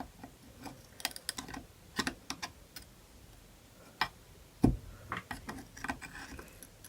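Irregular sharp metallic clicks and taps of screwdrivers working against a distributor's small metal parts while a clip is pried up, with one heavier knock about two-thirds of the way through.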